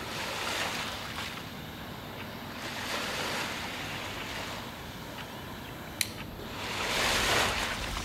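Ocean waves washing in, swelling and fading several times with the loudest near the end, and a single sharp click about six seconds in.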